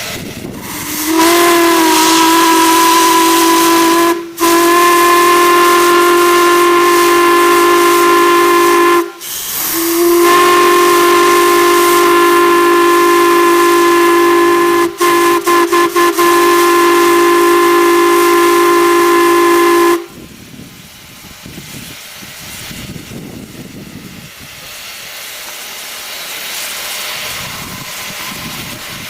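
Steam whistle blown with several tones sounding together: three long blasts, the last broken by a few quick stutters, cutting off abruptly about two-thirds of the way through. Quieter steam hiss follows.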